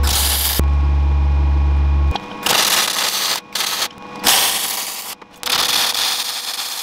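MIG welder tacking steel: several crackling, hissing bursts of a second or so each with short breaks between them. These are preceded by about two seconds of a deep, steady electrical hum.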